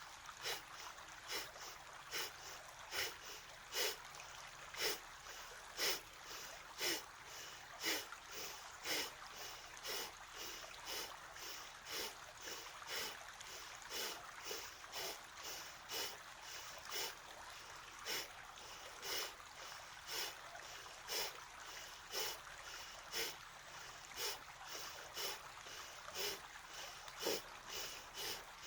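Kapalabhati (skull shining breath): rapid, forceful exhales pushed out through the nose by the abdominal muscles, with passive inhales between, about two sharp puffs a second in a steady rhythm.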